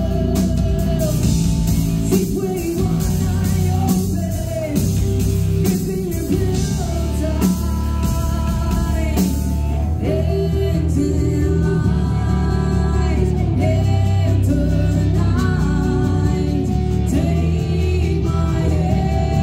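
A rock band playing live: electric guitar, bass guitar and drum kit, with a woman singing the lead vocal.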